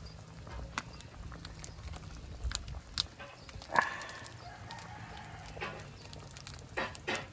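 A rooster crows once, about halfway through: a single call of about two seconds that starts sharply and then holds steady. Underneath, a large pan of chicken soup boils at a full rolling boil with a steady low rumble and scattered sharp clicks.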